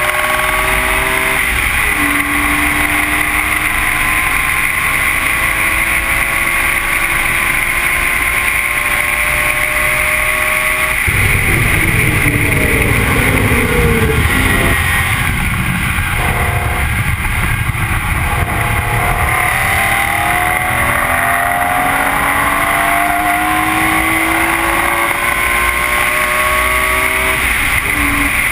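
BMW E46 M3's straight-six engine at full throttle on track, its pitch climbing through a gear and dropping at each upshift. Partway through, the note falls away as the car brakes and downshifts, then climbs again under hard acceleration. Steady road and wind rumble runs underneath.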